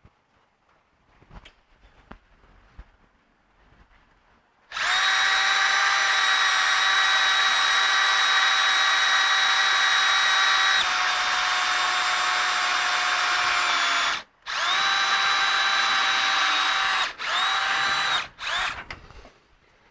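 Power drill running at speed with a steady high whine, starting about five seconds in and running for about nine seconds, its pitch dropping slightly partway through. It stops briefly, runs again for a few seconds, then gives a couple of short bursts near the end.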